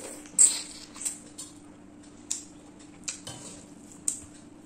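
Close-miked eating sounds of prawn curry with rice: a string of sharp, wet smacks and clicks, the loudest about half a second in and the rest spaced irregularly about a second apart.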